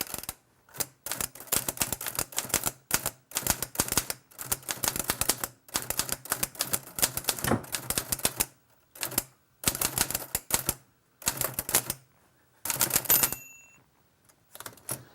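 Typewriter keys being struck in quick flurries, with short pauses between them. About thirteen seconds in, a short bell-like ring sounds.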